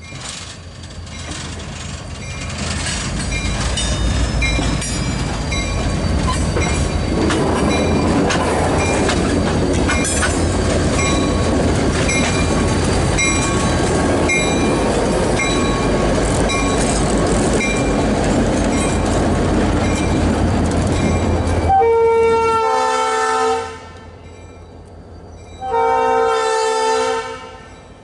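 An EMD GP39-2 diesel locomotive shoves a covered hopper car past, with its engine running, a low rumble, and wheels clicking over the rail joints at a steady pace. Near the end its air horn sounds twice, about two seconds and then about a second and a half, with a short gap between the blasts.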